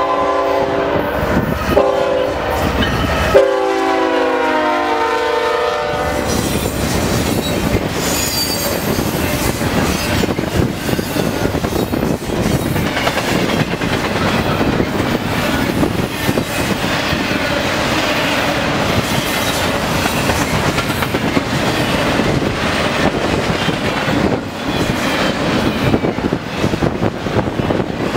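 Freight diesel locomotive air horn sounding in three blasts over the first six seconds as the lead units approach and pass. Then the double-stack intermodal container cars roll by with a continuous wheel clatter and rumble.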